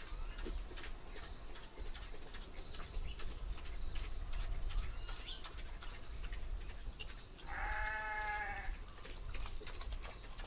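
A single bleating call from a farm animal, lasting a little over a second, about three-quarters of the way through, over scattered light clicks and knocks.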